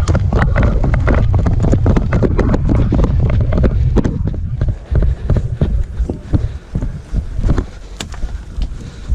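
Wind buffeting the microphone with a heavy low rumble, strongest for the first four seconds or so and then dropping, with many sharp clicks and snaps scattered throughout.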